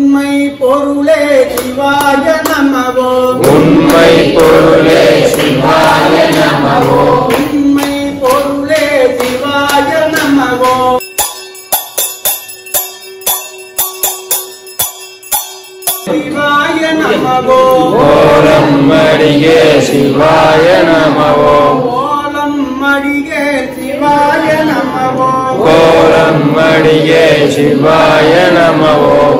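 Devotional music of male voices chanting Sanskrit Shiva mantras. About eleven seconds in, the voices stop for some five seconds, leaving only quick, evenly spaced strikes over a steady tone, and then the chant resumes.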